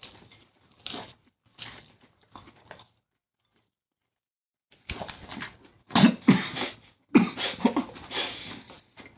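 Lettuce salad being eaten fast: irregular bursts of crunching and chewing, louder in the second half, with a silent break of about two seconds partway through.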